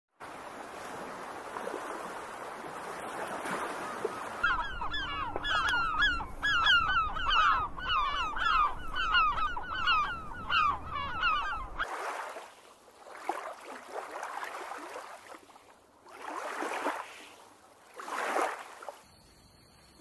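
Gulls calling: a long run of harsh, repeated cries, about two a second, starting about four seconds in and stopping around twelve seconds. After that, a few swells of surf wash in.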